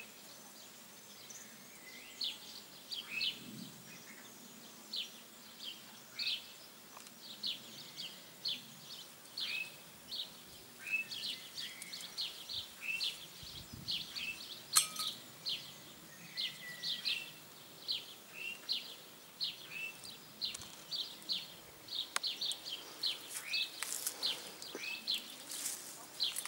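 Birds chirping in a garden: a steady run of short, high, downward-slurred chirps, about two a second, with one sharp click about fifteen seconds in.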